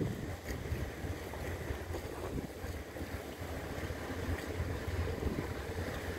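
Steady low rumble of a passenger ferry's engines, with wind buffeting the microphone.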